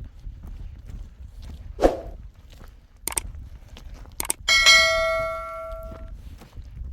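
A dull thump and a couple of sharp knocks, then a metal object is struck and rings with a clear bell-like tone for about a second and a half before fading.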